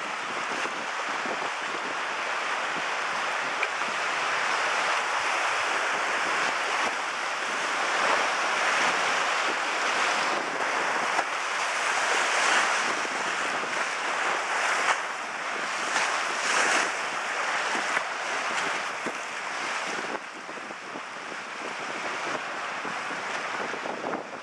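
Hydrofoil pulling away, its propeller wash churning the lake water into a steady rushing noise that swells and then eases off near the end.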